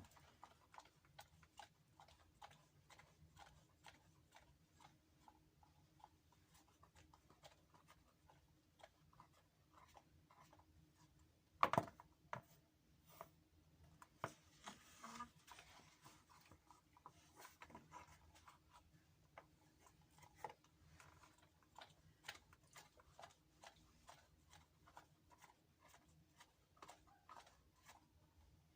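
Near silence with faint, irregular clicks and light taps, and one louder knock about twelve seconds in.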